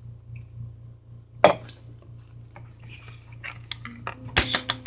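Clicking and clinking of small hard objects: one sharp click about a second and a half in, then a quick run of clicks near the end.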